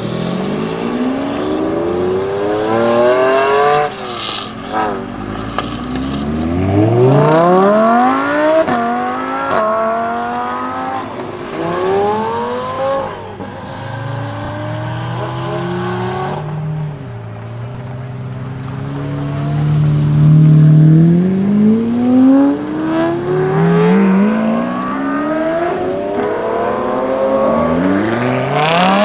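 Supercar engines accelerating hard one after another, each rising sharply in pitch and dropping back at gear changes. A deeper engine note holds steady around the middle before more cars rev away near the end.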